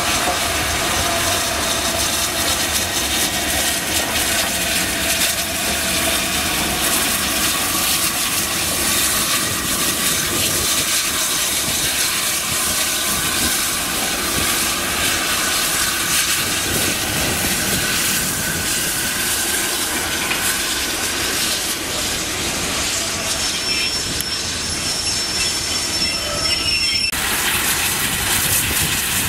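BR Standard Class 7 steam locomotive 70000 Britannia and its coaches moving slowly past along the platform. The sound is a steady mix of running gear and wheels on the rails, with faint wheel squeal and hissing steam.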